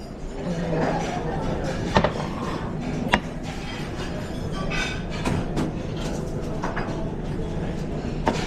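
Restaurant kitchen at work during service: a steady low hum under scattered clinks and knocks of dishes and utensils being handled.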